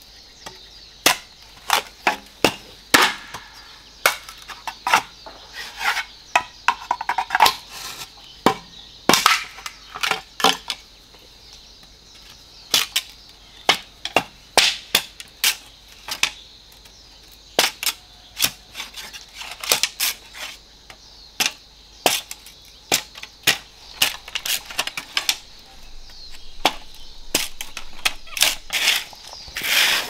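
Repeated sharp knocks or strikes at an irregular pace, roughly one to two a second, over a faint steady high hiss.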